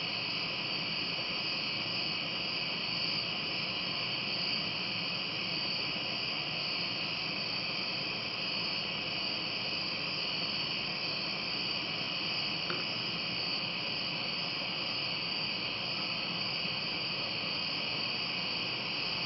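Steady chorus of night-singing insects, a continuous high-pitched drone.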